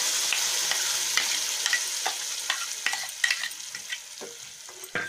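Wet ground chutney sizzling as it hits hot ghee tempering in a steel pan, the hiss dying away over the last couple of seconds. A metal spoon scrapes and clicks against the pan as it is stirred.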